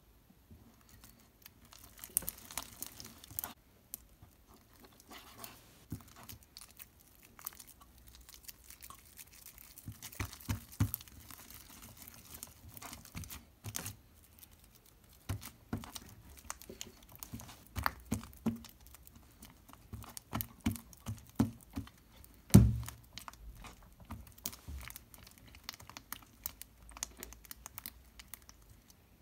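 Hands kneading sticky, stringy slime mixed with Play-Doh: irregular wet clicks and crackles as it is pressed and pulled apart, with one louder thump about two-thirds of the way through.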